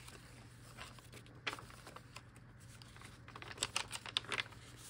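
Paper pages of a handmade junk journal being turned and handled: soft rustles and light taps of paper and card, a few spaced out at first, then a quick cluster about three and a half seconds in.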